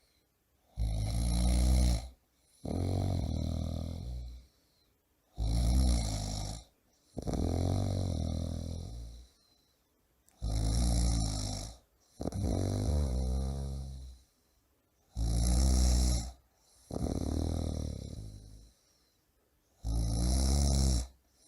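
A man snoring loudly in a steady rhythm, about one breath cycle every four to five seconds. Each cycle is a short, loud snore followed by a longer, softer one.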